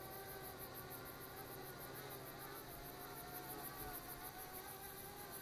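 Parrot Bebop quadcopter's rotors humming faintly in several steady tones that waver slightly as it comes down on low battery, with a high, fast, evenly pulsing trill above.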